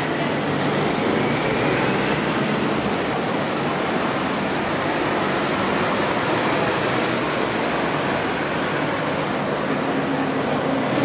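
Steady traffic and vehicle noise, with a faint whine rising over the first few seconds.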